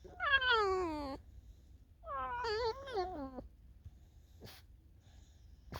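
A tame fox whining: two drawn-out, high calls, the first sliding down in pitch, the second about a second later wavering up and down. A short click follows near the end.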